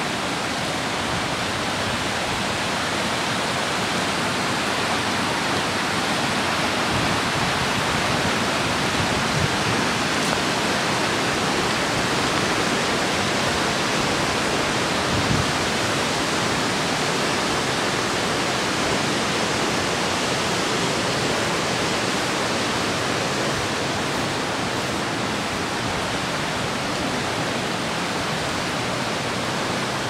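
Steady rushing roar of the waterfall inside Smoo Cave, where the burn plunges into the cave's inner chamber.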